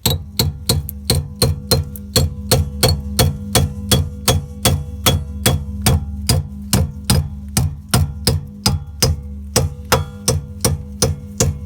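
Hammer blows staking the rear hub nut's collar into the stub axle, quick regular strikes about three a second, each with a short metallic ring.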